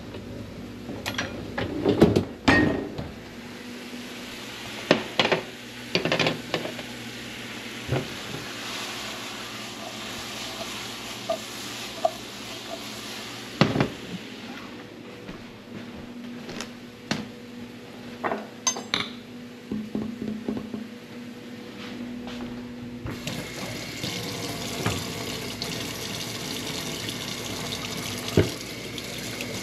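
Dishes and the dishwasher rack clinking and knocking, then a frying pan of corn kernels sizzling on an electric stove with the occasional knock of the pan. About two-thirds of the way in, a kitchen tap starts running into a stainless steel sink as a knife is rinsed.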